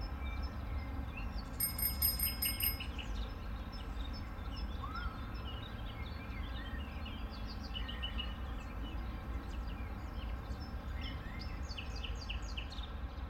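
Birds chirping over a steady low rumble, with a chime ringing briefly about two seconds in.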